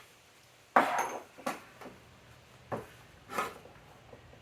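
Tools and metal parts handled at a workbench: four short knocks and clatters, the first and loudest trailing off in a brief scrape.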